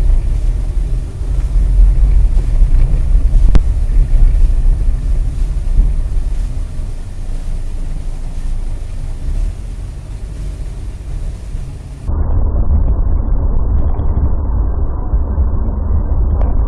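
Car driving on snowy roads, heard from inside through a dash cam: a steady low rumble of engine, tyres and wind, with one sharp click about three and a half seconds in. About twelve seconds in, a cut to a duller, more muffled recording of the same kind of low driving rumble.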